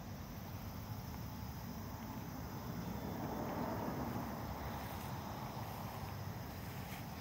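Outdoor ambience: a steady low rumble that swells about three seconds in and eases again, with a faint steady high hum above it.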